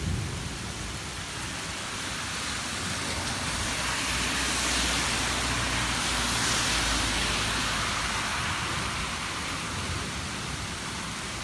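Heavy rain pouring down steadily on a flooded street. A car drives through the deep standing water, its tyres spraying it up, loudest from about four to eight seconds in, then fading back into the rain.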